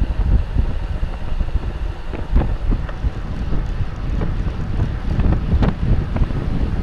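Wind buffeting the microphone of a bike-mounted camera riding in a racing pack at about 30 mph, a heavy low rumble. Scattered sharp clicks and ticks sound over it.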